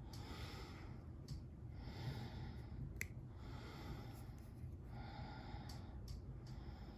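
A person breathing heavily close to the microphone, slow breaths in and out about one every second and a half. A single small click about three seconds in.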